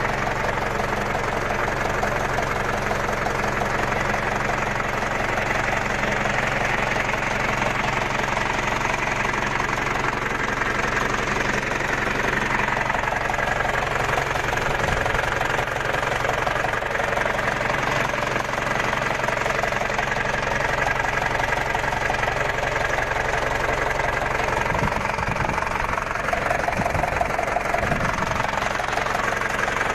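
Kubota tractor's diesel engine running steadily, recorded close to the engine compartment.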